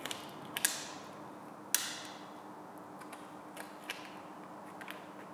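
Vinyl wrap film crackling and ticking as it is stretched and pressed into the corners of a brake caliper with a small hand tool. It comes as a series of separate sharp clicks, the loudest a crackle just under two seconds in, over a faint steady hum.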